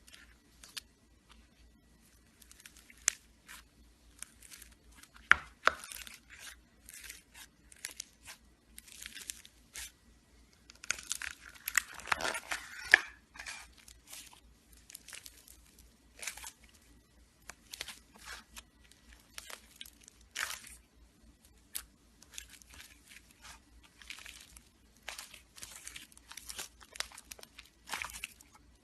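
Slime being squeezed and stretched by hand, giving irregular sticky crackles and pops, busiest about halfway through.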